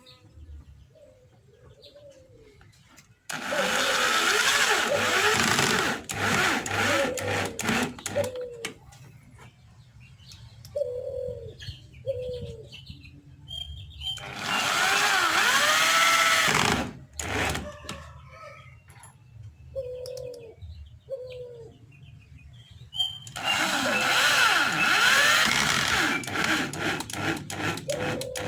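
A power tool runs in three bursts of about three seconds each, its pitch sweeping as it works. Between the bursts there are light clicks and doves cooing.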